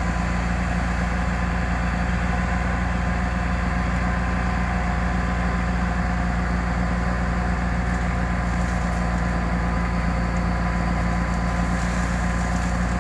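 Komatsu PC200-6 excavator's diesel engine idling steadily with an even low hum.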